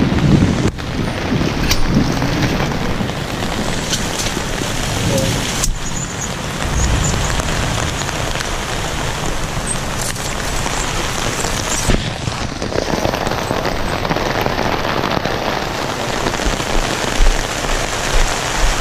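Heavy rain pouring down in a steady downpour around a pop-up canopy.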